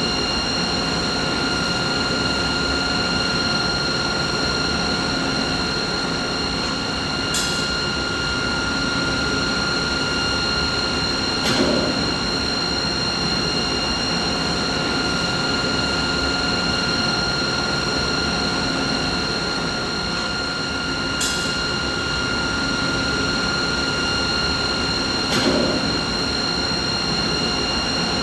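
Machinery running steadily: a dense low rumble with several steady high tones, sounding like an even mid-pitched machine hum. A brief click or knock comes four times, in two pairs about four seconds apart.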